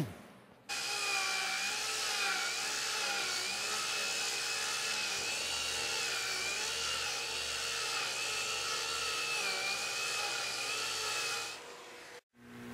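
Angle grinder fitted with a Diamabrush abrasive head working across a hardwood board, stripping off carpet glue and old finish. It starts suddenly just under a second in, runs with a steady whine that wavers slightly in pitch as it bites, and dies away near the end.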